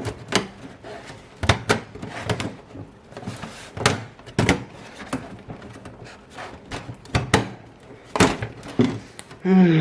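Irregular knocks and clunks as a side panel is fitted onto a desktop PC tower case: about a dozen sharp taps, spaced unevenly.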